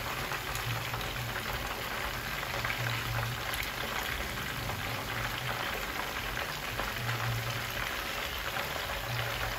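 Frozen croaker fish pieces frying in oil in a frying pan on low heat: a steady, dense sizzle and crackle of bubbling oil, with a low hum underneath.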